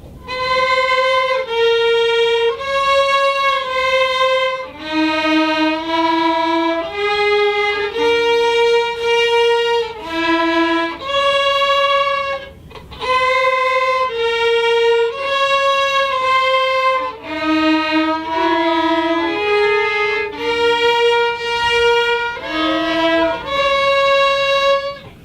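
A slow melody played on a single instrument, one long held note after another, in two phrases with a short break about halfway through.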